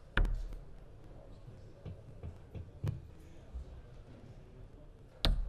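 Steel-tip darts striking a Winmau Blade 6 bristle dartboard: one sharp thud just after the start and another near the end, with a few faint ticks between.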